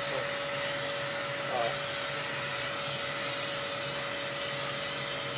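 Electric hair clippers with a vacuum hose attached, running: a steady suction rush with a constant hum, drawing away the cut hair.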